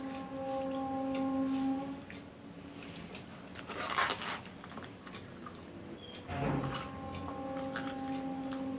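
Popcorn being bitten and crunched, eaten straight off a newspaper with the mouth, with scattered crisp clicks and louder crackling bursts about four seconds in and again after six. A steady held tone with overtones sounds in the background at the start and returns after about six seconds.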